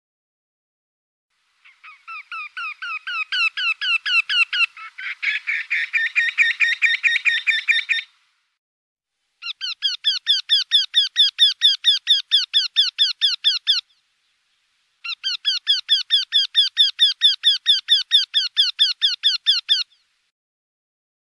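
Eurasian wryneck song: three long series of evenly repeated calls, about five or six notes a second, with short silences between them. The first series starts quietly and grows louder, and over its last few seconds a second series of calls overlaps it.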